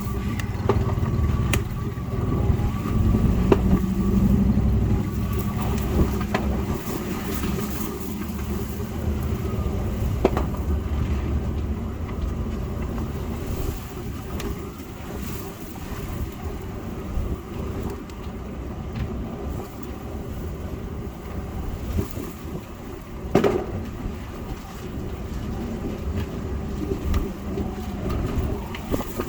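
Trucks rumbling in a parade, with wind buffeting the microphone; scattered sharp clicks and one louder knock late on.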